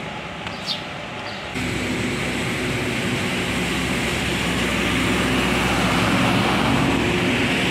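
Quiet street ambience that cuts abruptly, about a second and a half in, to a steady engine hum with hiss, growing slightly louder.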